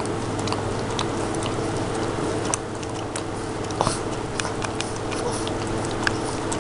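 Boston Terrier licking a frozen dog treat on a stick: irregular wet licks and small smacking clicks, over a steady low hum.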